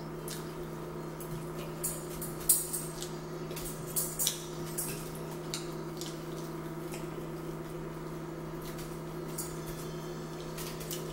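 Metal fork clinking and scraping against a dinner plate while eating: a handful of light clicks, most of them in the first half. A steady low hum runs underneath.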